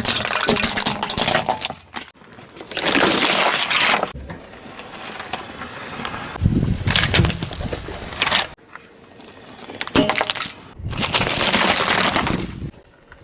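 Crunching, breaking sounds in four separate bursts of a second or two each, starting and stopping abruptly, as objects are crushed.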